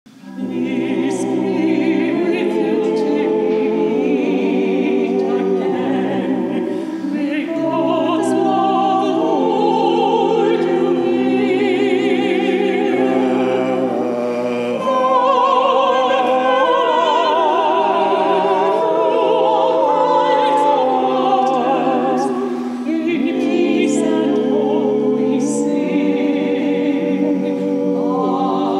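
A small vocal ensemble singing in several-part harmony, holding long notes with vibrato.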